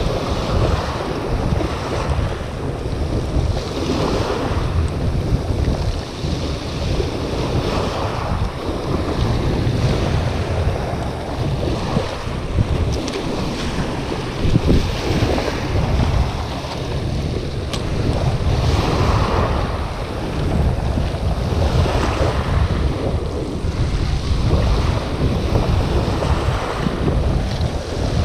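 Small waves breaking and washing up a shingle beach, a surge every few seconds, under a steady low rumble of wind buffeting the microphone.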